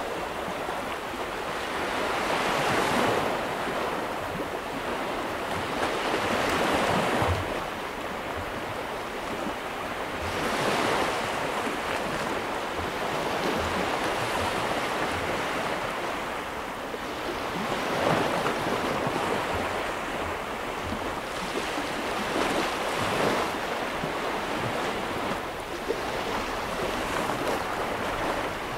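Baltic Sea surf washing onto a sandy beach, a steady rush of water that swells as each wave breaks and runs up the shore every few seconds.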